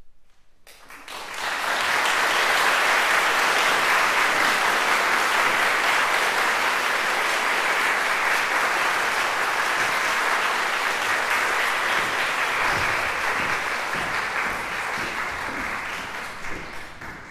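Audience applauding: the clapping starts about a second in, quickly swells to a steady dense ovation, then eases off near the end.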